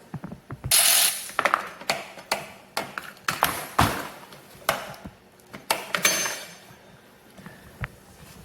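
Irregular metallic clicks, taps and short scrapes of hand tools on a pocket bike's frame as its chain guide is unbolted, with a brief ringing ping about six seconds in.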